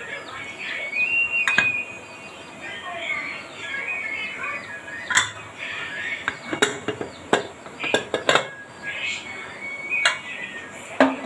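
Aluminium pressure cooker being opened: metal clinks and knocks of the lid and its whistle weight being handled, with a cluster of sharp knocks in the second half. Faint bird chirps in the background.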